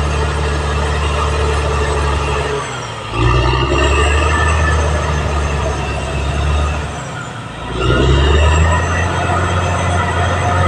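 Caterpillar D6R XL bulldozer's diesel engine running under load. The sound drops briefly twice, about three and seven seconds in, then comes back up.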